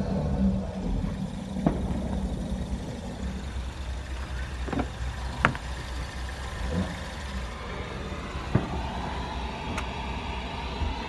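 Ford Focus ST engine idling steadily with a low rumble, with a handful of short, sharp clicks and taps scattered over it.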